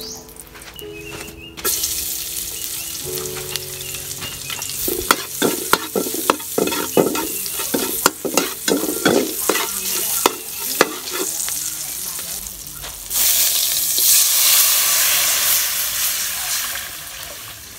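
Chopped food sizzling in hot oil in a steel wok, with a metal ladle clinking and scraping against the wok as it is stirred. About thirteen seconds in, water poured into the hot wok sets off a sudden, louder steady hiss of boiling and steam.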